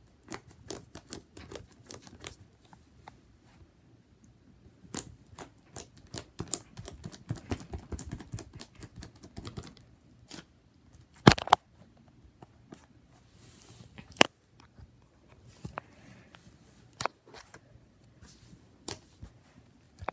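Fingers poking and pressing into fluffy slime, making irregular sticky clicks and small pops. Two louder clicks stand out near the middle.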